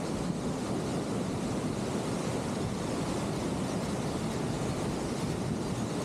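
Steady rush of water in a swollen mountain stream and its falls, an even unbroken noise.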